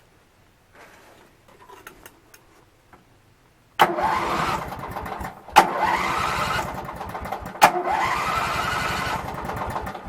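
Riding lawn mower's twin-cylinder engine being cranked by its starter three times, each try opening with a sharp click and a couple of seconds of cranking, without catching. It is a hard-start that the owner suspects lies in the ignition switch.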